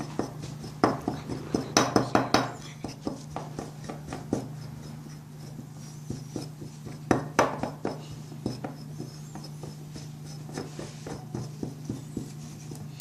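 A dessert spoon clinking and scraping against a bowl as ginger and turmeric powder are stirred with honey into a thick paste: irregular clicks, in busier clusters near the start, around two seconds in, and about seven seconds in.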